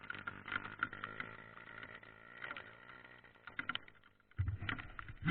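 Trail motorcycle engine running steadily in the background, with scattered clicks; a sudden low rumble comes in about four seconds in.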